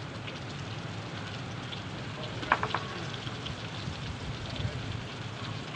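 Oil sizzling steadily in a pan over an open wood fire, with faint crackles from the fire. A brief high call, like a cat's meow, stands out about two and a half seconds in.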